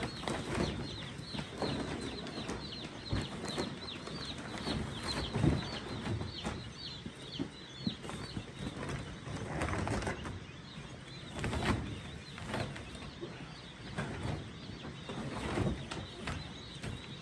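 A crowd of day-old chicks peeping, many short high falling peeps in quick succession, thick in the first half and thinning out later. These are cold chicks, and loud peeping is their sign of being chilled. Irregular rustling and knocks of handling run underneath.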